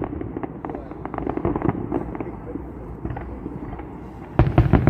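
Fireworks display: a steady scatter of sharp crackling pops, then a rapid cluster of loud bangs near the end.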